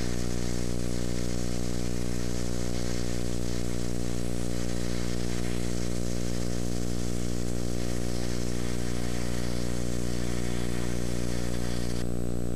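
Steady electrical hum with an even hiss over it, unchanging throughout; the hiss thins slightly near the end.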